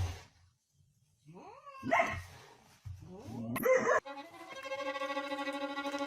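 A dog giving two short barks with sliding pitch, about a second and a half apart. Background music with long held notes follows from about four seconds in.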